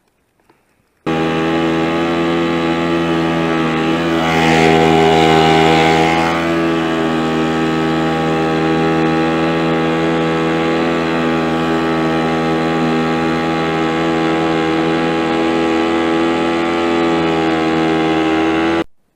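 Outboard motor pushing an inflatable PVC boat, running at a steady speed with an even engine tone. It starts abruptly about a second in, is briefly louder around four to six seconds in, and stops abruptly near the end.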